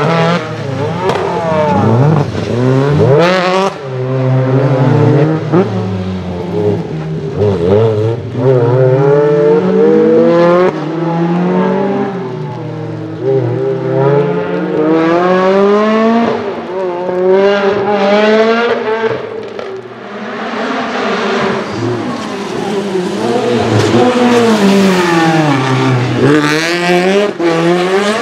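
Lotus Exige Cup 260 rally cars' supercharged four-cylinder engines revving hard, the pitch climbing and dropping again and again through gear changes and lifts off the throttle.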